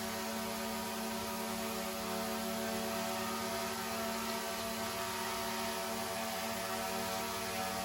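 DJI Mini 3 drone's motors and propellers whirring steadily: a constant hum with a buzz of higher tones above it, holding one pitch throughout.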